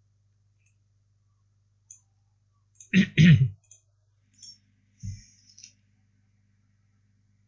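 Computer mouse clicks close to the microphone, a loud double click about three seconds in and a single one about five seconds in, with a few faint ticks, over a steady low electrical hum.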